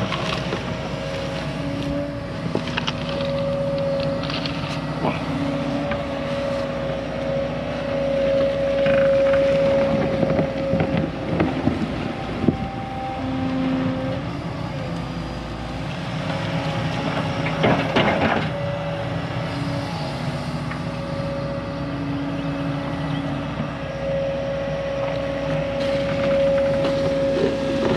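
Volvo excavator's diesel engine running under varying load, its steady hum and hydraulic whine rising and easing as it works. Knocks and scrapes from the bucket and dirt come in now and then, heaviest about ten and eighteen seconds in.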